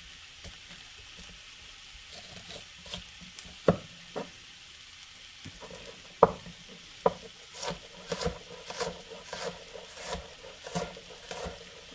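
Chef's knife cutting an onion on a wooden cutting board: a few separate knocks of the blade on the board at first, then quicker, steadier chopping in the second half as the onion is diced.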